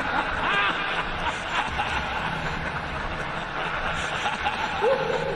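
A man's laugh sound effect: short chuckling laughs over a steady, noisy hiss.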